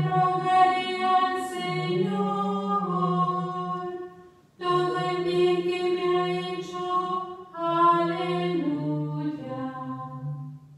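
A woman cantor singing unaccompanied, chanting the responsorial psalm after the first reading of the Mass. Two long phrases of held notes, with a short break about four seconds in.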